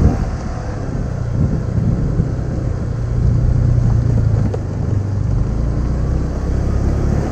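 Motorcycle engine running steadily while riding along, with wind and road rumble; it gets a little louder for a second or so partway through.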